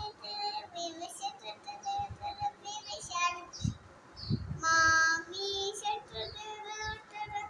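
A young girl singing in a high, thin voice, in short sing-song phrases, with one longer held note about five seconds in.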